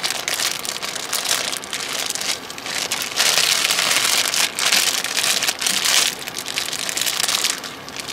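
Food sizzling and spattering in a hot frying pan, a steady crackling hiss that grows louder from about three seconds in and eases near the end.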